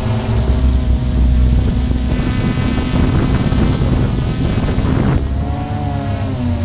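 Multirotor drone's motors and propellers whirring loudly and steadily, the pitch of the whine bending up and down about five seconds in.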